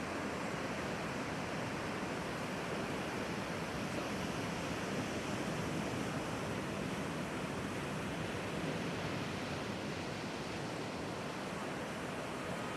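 Steady wash of breaking ocean surf mixed with strong wind.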